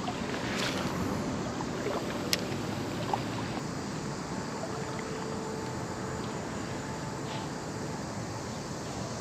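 Steady rushing background of flowing creek water mixed with traffic noise from a nearby busy road and highway, with a few light clicks in the first three seconds.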